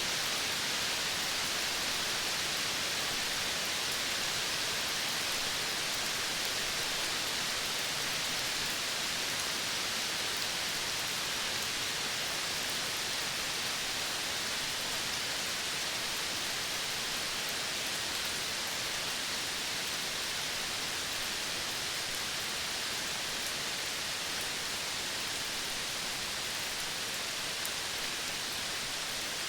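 Steady, even hiss of outdoor natural ambience, strongest in the upper-middle range, with no distinct calls or events standing out.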